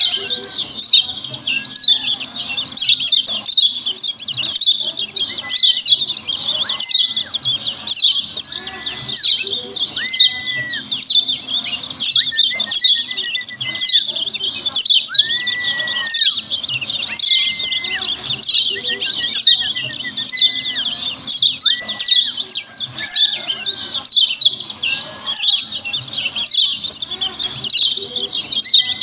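Yellow white-eye (kecial kuning) giving its 'ciak ciak' call: an unbroken run of short, sharp, down-slurred chirps, several a second, with a held whistle lower down every couple of seconds. The call is used as a lure to make other white-eyes answer.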